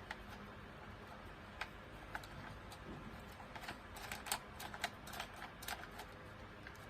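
Light, irregular clicks and taps of small hard parts being handled as a phone holder is fitted to its mount, coming more thickly about four seconds in.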